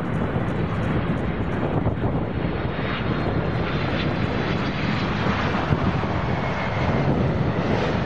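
Boeing 767-300 airliner's twin jet engines running at approach power as it passes close by just above the runway before touchdown: a steady rushing jet noise with a faint high whine in the middle.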